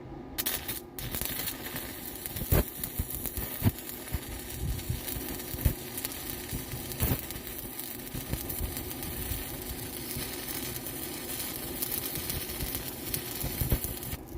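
Welding arc crackling steadily on steel round stock, starting sharply just after the start and cutting off just before the end, with a few louder pops along the way.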